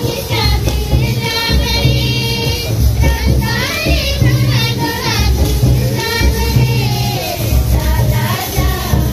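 Voices singing a welcome song over music with a steady low beat, roughly one beat a second.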